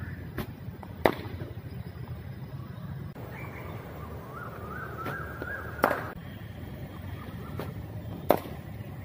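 Cricket ball in the nets: three sharp cracks of leather ball on willow bat, each about 0.7 s after a fainter knock.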